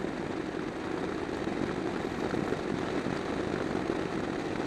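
Suzuki Sixteen scooter's single-cylinder engine running steadily while riding, with an even rush of wind and road noise.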